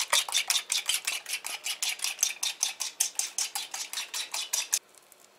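A metal fork beating eggs in a glazed ceramic bowl: fast, even scraping and clinking strokes, about six a second, which stop abruptly near the end.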